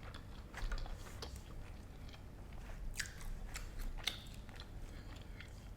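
A person chewing and biting food close to the microphone, with a few short crunchy clicks, the clearest about three and four seconds in.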